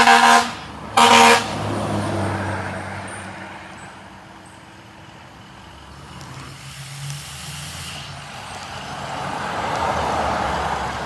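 Fire engine's horn giving two short blasts about a second apart, then the truck's engine running, fading and then getting louder again near the end.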